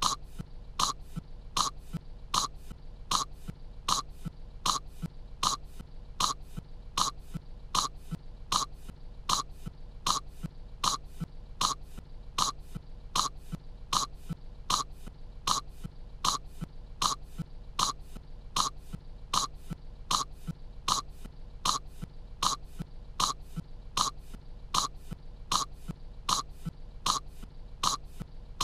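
A young cartoon girl's voice coughing on kettle corn: one short cough clip looped, so identical coughs repeat at an even pace of about two a second.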